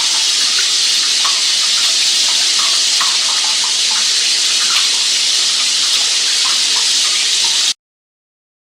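Steady rush of running water with faint scattered gurgles, cutting off suddenly near the end.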